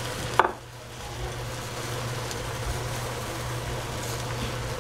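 Vegetables sizzling in a frying pan over a steady low hum. A sharp knock comes about half a second in, after which the sizzle briefly drops and then builds back.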